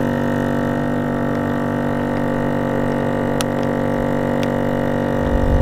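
Countertop vacuum sealer's electric pump running with a steady droning hum, drawing the air out of a plastic bag before sealing it. A low rumble joins near the end.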